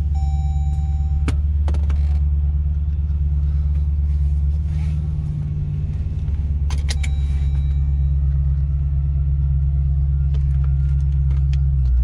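Jeep Grand Cherokee SRT's 392 Hemi V8 idling, heard from inside the cabin as a steady low rumble. A steady tone stops about a second in, and a few sharp clicks come about two seconds in and again about seven seconds in.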